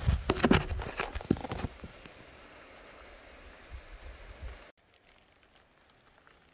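Thunder rumbling with sharp crackles, fading away over about two seconds. A fainter low rumble comes about four seconds in, then the sound cuts off suddenly.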